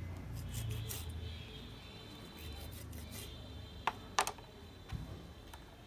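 Kitchen knife cutting into a pufferfish's skin on a plastic cutting board, with faint scraping strokes, then two sharp knocks of the blade against the board about four seconds in and a lighter knock a second later.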